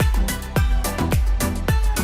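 Dance-style background music with a steady deep kick-drum beat, about three beats a second.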